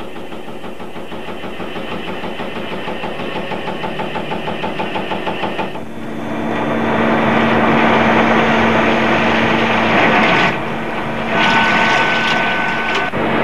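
Sheet-metal punch press stamping in a rapid, even rhythm. About six seconds in it gives way to a louder, steady machine-tool running sound with a low hum: a CNC milling machine whose face mill is cutting metal, with a higher steady whine near the end.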